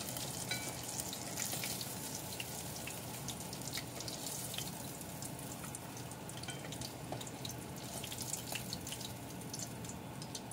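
Oil at about 160 °C sizzling in an iron frying pot: a steady sizzle with scattered small crackles, as deep-fried grunt pieces are lifted out with chopsticks.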